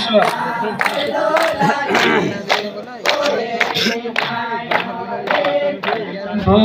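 A group singing a devotional garba song over a steady percussion beat of about two strokes a second.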